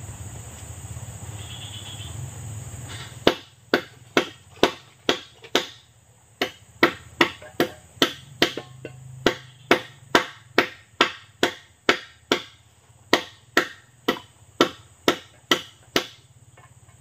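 About thirty sharp strikes of a tool on wood, two or three a second in short runs with brief pauses, while a hut floor is being built.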